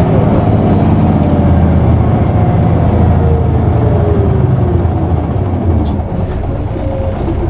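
Diesel engine of an Isuzu Erga city bus (PKG-KV234L2) running under way, heard from inside the bus; the engine note slowly falls in pitch through the middle as the revs drop, and the sound eases a little near the end.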